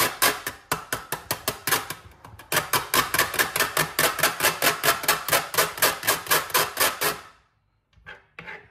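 Kitchen knife chopping rapidly on a cutting board, about five strokes a second, slicing orange peel into strips. It pauses briefly about two seconds in and stops over a second before the end.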